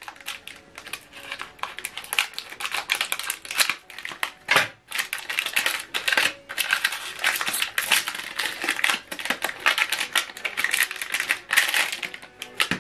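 Plastic packaging of an HP 305 black ink cartridge crinkling and crackling as it is handled in the hands, with many small irregular clicks and rustles.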